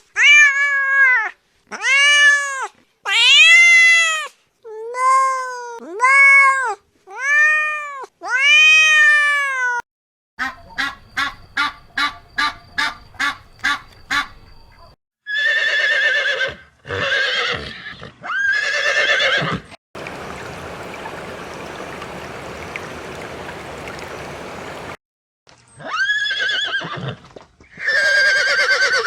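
A string of animal calls cut one after another. First come about seven arched, pitched calls, each rising and falling in about a second. Then a fast run of a dozen short, evenly spaced pulses, then rougher calls, a few seconds of steady hiss, and two more calls near the end.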